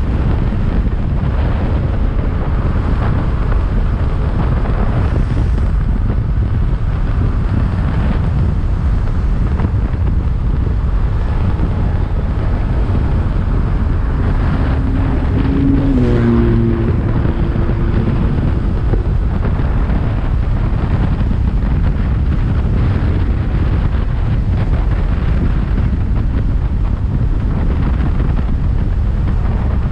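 Heavy wind buffeting on the microphone of a motorcycle riding at speed, steady throughout. About halfway through, a brief humming tone comes in and falls in steps.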